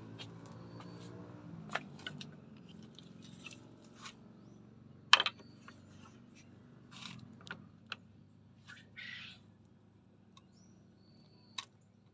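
Low steady hum of a diesel engine driving a corn grinding mill, fading gradually over the first several seconds, with scattered clicks and knocks, the loudest about five seconds in, and a few short high chirps.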